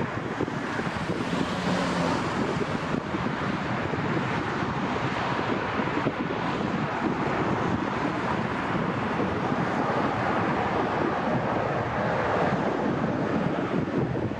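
Steady roar of jet airliner engines with wind buffeting the microphone.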